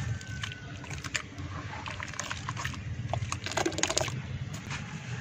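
Hands squishing and crumbling soft red dirt in a basin of muddy water: irregular wet squelches and splashes, with a cluster of louder splashes a little before four seconds in.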